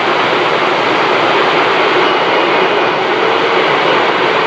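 CB radio receiver hiss: loud, steady static with no signal on top, with faint whistles partway through.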